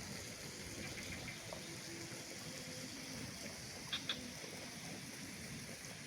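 Mountain outdoor ambience: a steady soft hiss of air or distant water, with two short high chirps close together about four seconds in.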